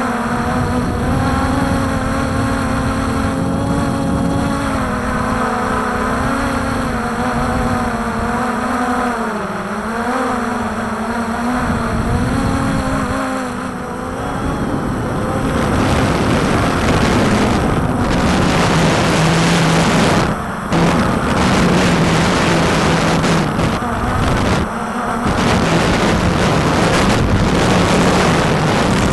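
Walkera Tali H500 hexacopter's motors and propellers whining, the pitch wavering up and down as it holds against strong gusty wind. From about halfway, wind rushing over the microphone largely covers the rotors, with two short breaks in the rush.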